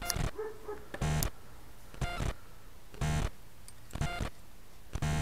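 A dog barking steadily, one short bark about every second, six times in a row.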